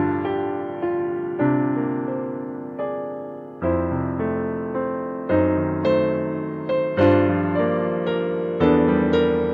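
Solo digital piano playing a slow waltz: chords struck in turn, each ringing on and fading before the next.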